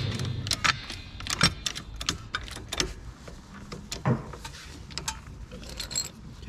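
Hydraulic trolley jack being worked by its long handle: a series of irregular metallic clicks and knocks from the handle and jack mechanism.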